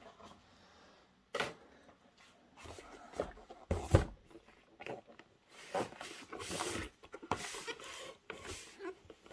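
Cardboard model-locomotive box being handled on a wooden tabletop: several knocks, the loudest about four seconds in, and scraping and rustling as the box is turned and slid.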